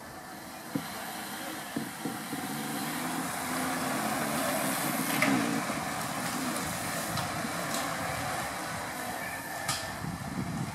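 A group of racing bicycles sweeping past, a rush of tyres on a paved road that swells to its loudest about five seconds in, with a couple of sharp clicks in the first two seconds.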